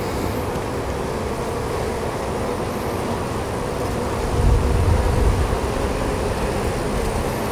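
Honeybees humming steadily at close range around a hive entrance, with a brief low rumble about halfway through.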